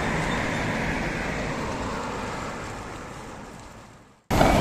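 Road traffic noise at a busy intersection, a steady rumble and hiss that fades out to silence about four seconds in. Just before the end, louder outdoor noise cuts in abruptly.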